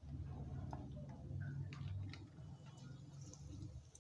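Batter-coated bread frying in hot oil in an iron kadai: faint scattered crackles and ticks over a low steady rumble.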